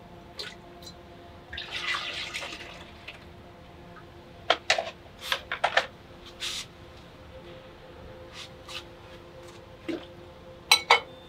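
A brief rush of water lasting about a second and a half, about two seconds in, then scattered sharp clicks and knocks, with a louder pair near the end.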